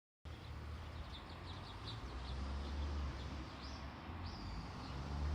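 Small birds chirping: a quick run of short, high chirps about a second in, then two longer high calls that rise and fall, over a steady low rumble.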